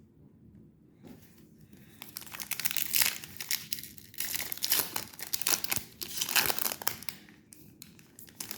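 A Topps Chrome trading-card foil pack being torn open, the wrapper crinkling and crackling in quick runs for several seconds after a quiet first second or two.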